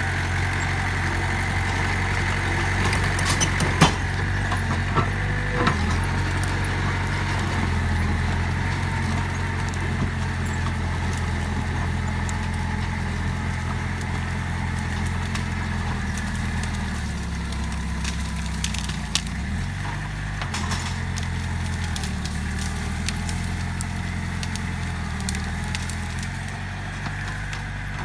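Mitsubishi BD2F bulldozer's diesel engine running steadily, its note dropping for a few seconds past the middle before picking up again. A few sharp cracks sound in the first several seconds.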